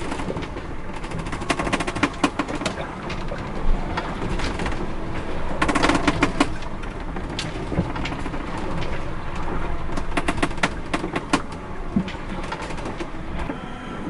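The cabin of an Island Packet 38 sailboat creaking and rattling as it rolls in heavy seas: the wooden joinery and fittings give squeaky creaks and clusters of clicks, three bursts of them, over a steady rushing noise.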